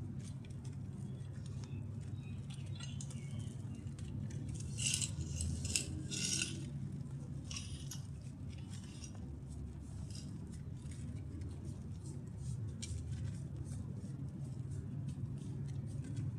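Grainy mud crumbling, a run of crisp crackles and small clicks, densest about five to six and a half seconds in and again around eight seconds, over a steady low hum.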